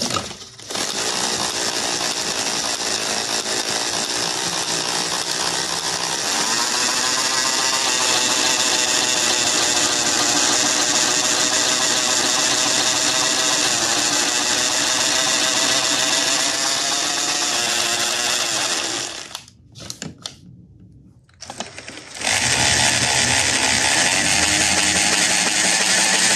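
Handheld power drill turning a 3D-printed filament winder, spooling PLA filament from one spool onto another. The whirr runs steadily, stops about 19 seconds in, and starts again about three seconds later.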